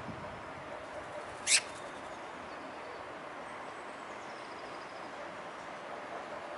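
Birdsong ambience: faint high chirps of small birds over a steady hiss, with one loud, short bird call falling in pitch about one and a half seconds in.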